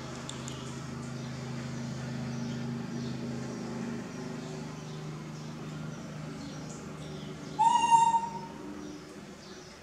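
A baby macaque gives one short high-pitched call near the end, rising a little and then held, over a steady low hum.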